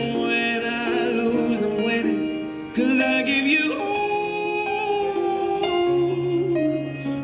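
A song playing, a singing voice holding long notes over instruments and a bass line.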